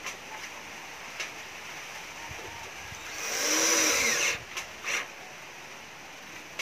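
Cordless drill-driver running for about a second as it drives a screw through the grille ring into the speaker cabinet, its motor pitch rising and then falling. Two short clicks follow.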